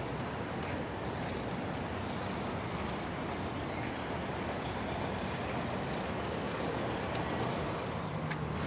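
Steady road traffic noise from a busy avenue, with vehicles passing.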